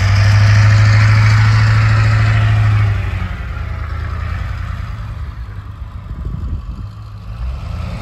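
Snowplow pickup truck's engine working hard as it pushes snow, loud and steady for about three seconds, then easing to a lower, quieter running.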